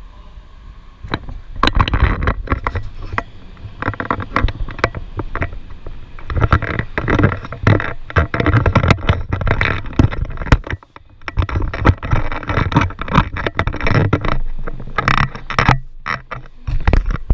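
Handling noise from a handheld camera being moved about close up: irregular rubbing, bumps and clicks on the microphone, with a low rumble, coming in uneven bursts.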